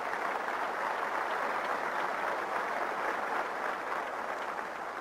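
Audience applauding: a steady wash of clapping hands that eases off near the end.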